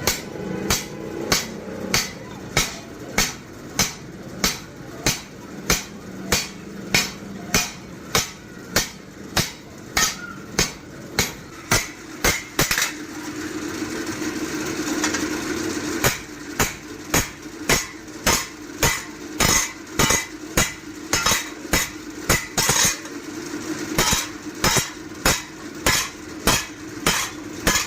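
Hand hammer striking metal on an anvil in a steady rhythm, about two blows a second, as a forage-machine blade is forged. The blows pause for about three seconds midway, with a steady hum in the gap, then start again.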